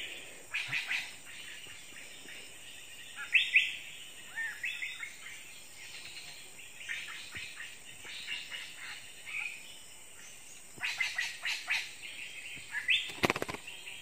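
Small songbirds chirping, with short rising chirps and bursts of rapid chattering notes coming in clusters. One sharp knock near the end.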